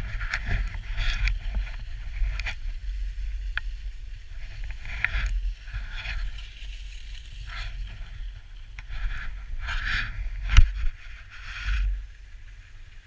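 Skis scraping and hissing over a groomed piste in surges with the turns, over a steady rumble of wind on the camera's microphone. A sharp knock comes a little over ten seconds in, the loudest moment, and the scraping is quieter near the end.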